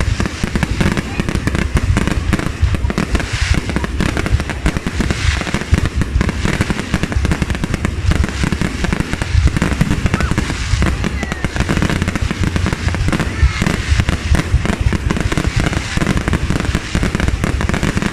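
Fireworks display: a dense, unbroken run of booming bursts and crackling, loud throughout.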